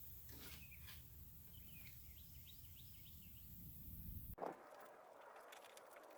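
Near silence: a low steady hum with a few faint high chirps, typical of birds, in the middle. About four seconds in the hum drops away abruptly, leaving a thin hiss with scattered faint clicks.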